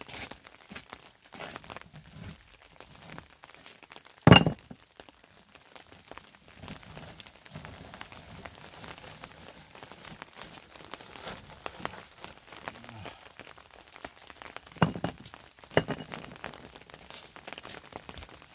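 Plastic tarp rustling and crinkling as it is handled over a doorway, with one loud sharp knock about four seconds in and two smaller knocks near the end.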